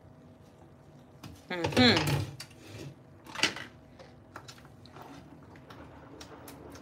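A ladle stirring okra soup in a pot, with light clicks and a scrape of the utensil against the pot. About one and a half seconds in, a short voiced sound from a person, falling in pitch, is the loudest thing.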